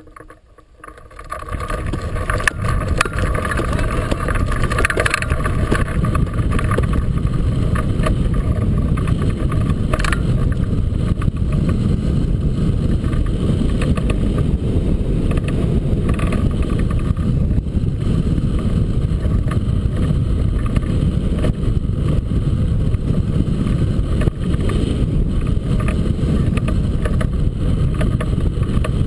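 Wind rushing over the microphone of a camera mounted on a hang glider. It rises sharply about a second in as the glider takes off and gains airspeed, then continues as a steady low rush of airflow during flight.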